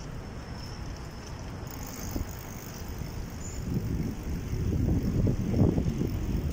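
Wind buffeting a phone's microphone while cycling, a low gusty rumble that grows louder about four seconds in.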